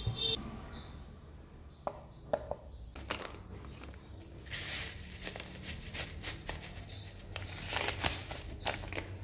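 Plastic food packet crinkling and rustling as it is handled and tipped, after a few light clicks of a spoon on a steel bowl.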